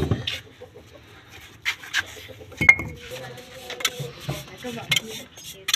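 Steel bricklaying trowel scraping and tapping cement mortar against brickwork, with a sharp knock a little under three seconds in.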